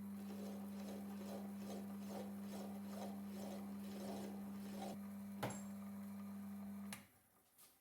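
Electric motor of a small machine tool running with a steady hum, under a rhythmic scraping a little over twice a second. There is a sharp click about five and a half seconds in, and the motor cuts off near the end.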